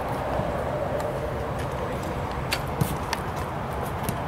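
Footballs being kicked during shooting practice, with a few short sharp thuds, the loudest a little past halfway through. A steady low outdoor hum lies underneath.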